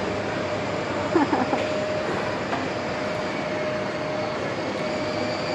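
Battery-powered ride-on toy jeep driving, its electric drive motors and plastic wheels giving a steady whirring rumble with a steady whine. A brief squeaky gliding sound comes about a second in.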